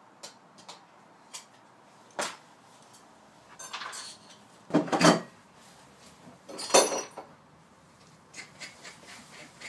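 Farrier's hand tools working on a horse's hoof: scattered knocks and clicks, with louder scraping strokes about two, five and seven seconds in.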